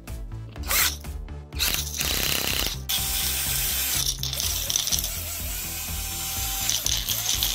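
Cordless drill turning a glass jar full of small drill parts, the parts rattling and clattering against the glass as they tumble, starting about two seconds in after a few clicks. Background music underneath.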